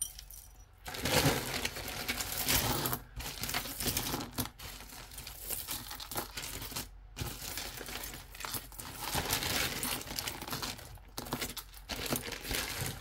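Plastic bag crinkling and rustling as costume jewelry is rummaged through, with small clinks of beads and chain. It runs on in irregular bursts with a few short pauses.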